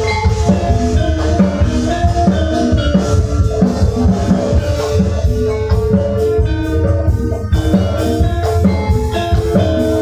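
Javanese gamelan music: short ringing metallophone notes over steady kendang drum strokes, playing without a break.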